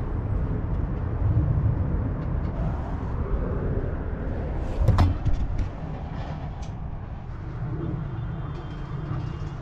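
Low, uneven rumble with a single sharp knock about halfway through and a few lighter clicks.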